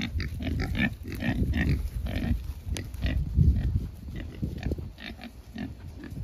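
Several pigs grunting, with many short, irregular grunts that come thick and fast, the loudest about three and a half seconds in.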